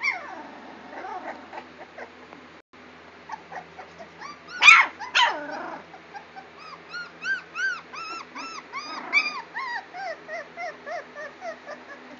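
Young pit bull–type puppies whimpering and yelping. Two louder yelps come about four and five seconds in, then a quick series of short high whines, about three a second.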